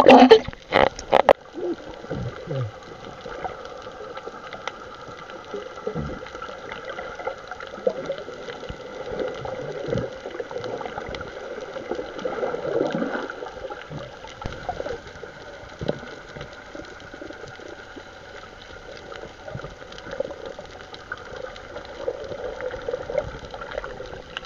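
Water gurgling and sloshing over a steady hum, with a few sharp knocks in the first second.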